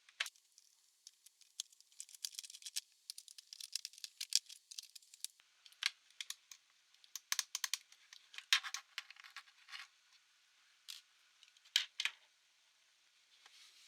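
Many small, sharp clicks, taps and scrapes of hands working on a laptop's plastic and metal parts, in dense clusters with short pauses between.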